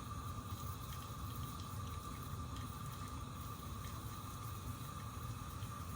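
Atomic stovetop espresso maker on the heat, its sealed boiler simmering under pressure during extraction as coffee trickles through before the crema forms. It makes a steady low bubbling rumble with light ticks and a faint steady high tone.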